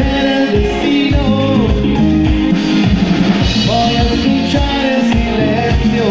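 Live salsa band playing: singing over keyboards, electric guitar and drum kit, with a steady beat.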